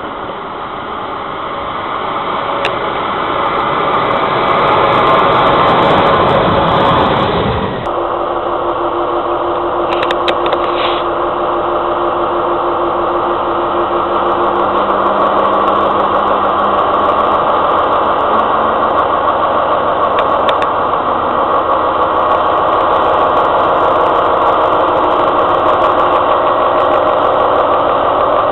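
An SNCF BB 27000 electric locomotive running light comes closer, a rumble of wheels on rails growing louder and then cut off abruptly about eight seconds in. Then the diesel engine of BB 75000 locomotive 75014 runs steadily as the locomotive moves slowly off, with a low hum that changes pitch partway through.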